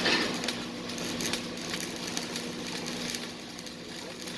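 Electric welding arc crackling steadily as a bead is laid, over a steady low electrical hum.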